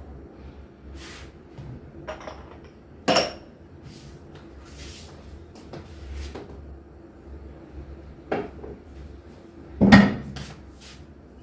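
Kitchen clatter of things being handled and set down, with two louder sharp knocks, one about three seconds in and one near the end.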